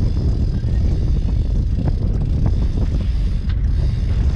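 Wind buffeting the camera microphone: a loud, steady low rumble, with a few faint ticks from the boat.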